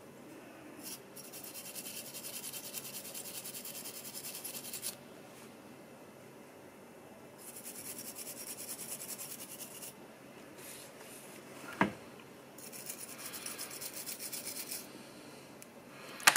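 Small diecast car's metal body being rubbed by hand with an abrasive, in three stretches of quick back-and-forth strokes a few seconds each. A single sharp tap comes just before the last stretch.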